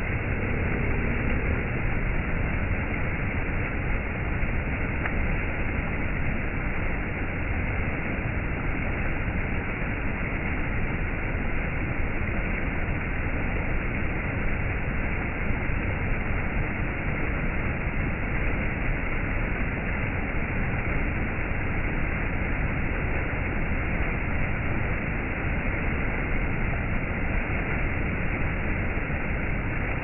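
Shallow rocky stream spilling over stepped rock ledges in small cascades: a steady, even rush of water.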